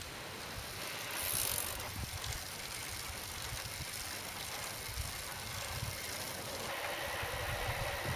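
Bicycle rolling along an asphalt road: steady tyre and drivetrain noise, with wind rumbling on the microphone.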